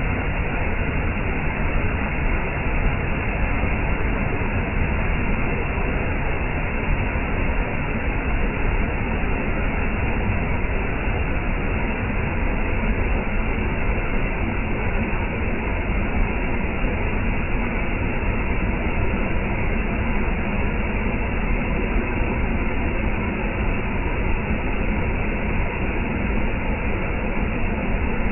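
Waterfall, the water rushing with a steady, unbroken noise.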